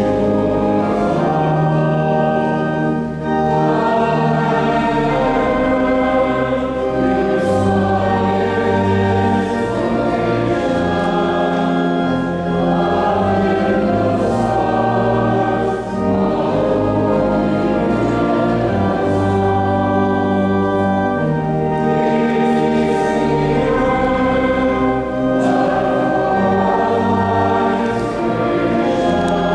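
A choir singing, with long held low notes sounding beneath the voices.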